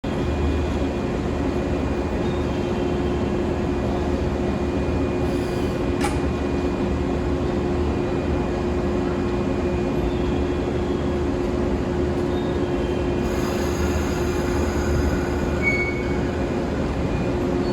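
JR West 113 series electric train running with a steady hum. There is a sharp click about six seconds in, and higher whines join about thirteen seconds in.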